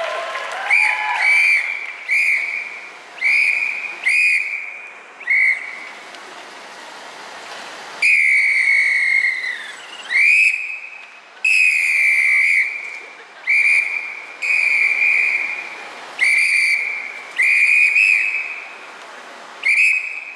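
A hand-blown whistle sounding in a string of about a dozen short, shrill blasts, with two longer blasts about eight and eleven seconds in, the first sliding down in pitch as it ends.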